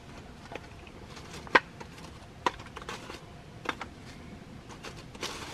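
Sticks and twigs knocking and snapping as they are laid by hand into a small sheet-metal fire box. There are a few sharp knocks, the loudest about a second and a half in.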